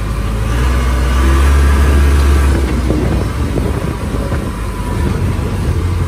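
Backhoe loader's diesel engine running as the machine drives, heard from the operator's cab, with a steady low hum. The engine note rises about a second in and eases off again a couple of seconds later.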